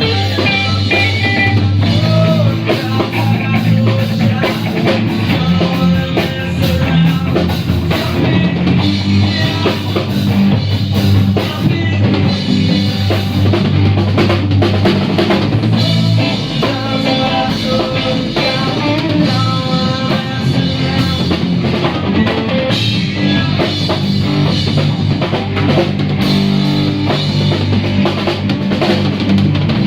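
A live band playing an improvised instrumental jam: a drum kit with bass drum and snare keeps a steady beat under bass notes and other pitched instruments.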